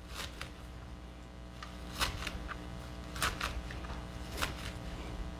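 Kale leaves being cut in the kitchen: short, sharp clicks and knocks at an irregular pace, a few tenths of a second to a second apart, over a steady low hum.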